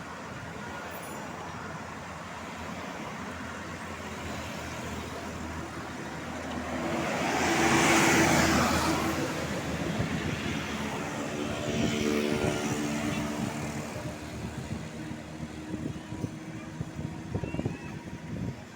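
Road traffic passing: a large vehicle goes by close about eight seconds in, its noise swelling and fading, and another passes about twelve seconds in.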